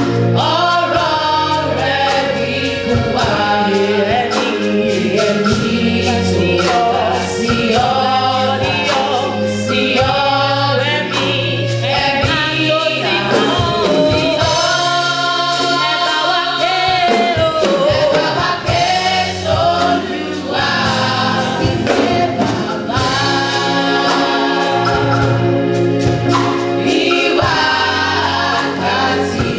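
Youth choir of young women singing a gospel song together into microphones, over a steady low bass accompaniment.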